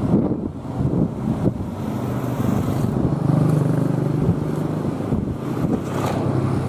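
Engine of a rail track tamping machine (MTT) running steadily under load, with a few irregular knocks from the working gear.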